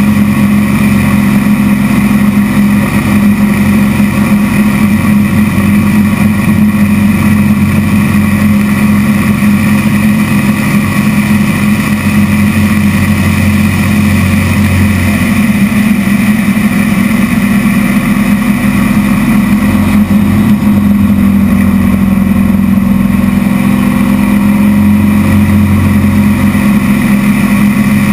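Zlin light aircraft's piston engine and propeller running steadily in flight, heard loud inside the closed cockpit as one continuous drone, its pitch dipping slightly partway through.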